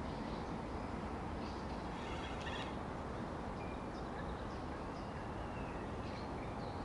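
Songbirds calling in short chirps and trilled phrases over a steady rushing background.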